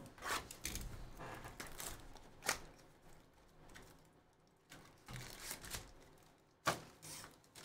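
Cardboard trading-card hobby box being pried and torn open by hand, with rustling and crinkling of cardboard and foil packs and a couple of sharp snaps, one about two and a half seconds in and one near the end.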